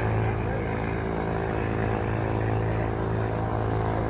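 Piston-engine propeller airplane running steadily at idle, an even, unchanging drone.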